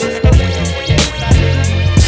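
Hip hop beat: kick drum strokes over a deep, sustained bass line, with hi-hats ticking on top.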